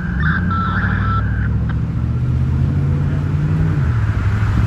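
Emergency vehicle's engine running loudly under power, its low drone dropping in pitch just before the end, with a brief higher tone near the start.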